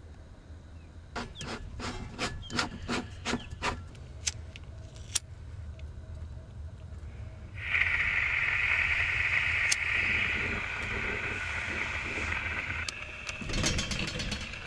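Skotti portable gas grill being set up: a run of about ten sharp metallic clicks, then a steady gas hiss for about five seconds once the gas hose is connected to the grill. A short rustle of plastic packaging follows near the end.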